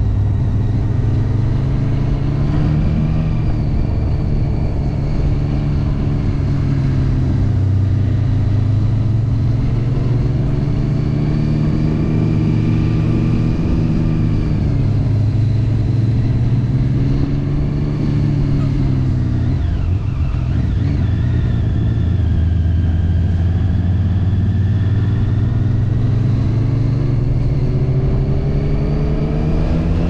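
Triumph Street Triple 675's inline-three engine running at part throttle on a ride, its note rising and falling gently with the throttle. It drops low about two-thirds of the way through, then climbs steadily near the end as the bike accelerates.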